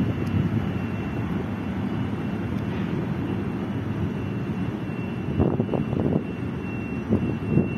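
Passenger railway coach rolling past on steel rails, a steady low rumble of wheels on track with a thin steady high whine. A few sharper knocks come in the last few seconds.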